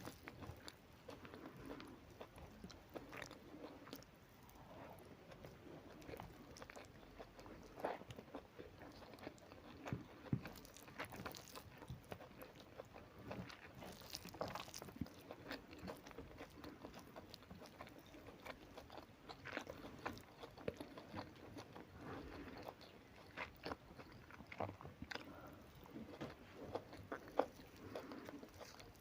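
A person chewing and biting food close to the microphone, with many small irregular crunches and wet mouth clicks.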